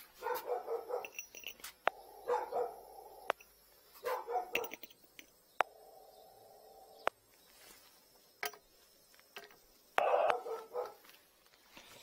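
A dog barking in four short bouts of several quick barks each, the loudest bout about ten seconds in.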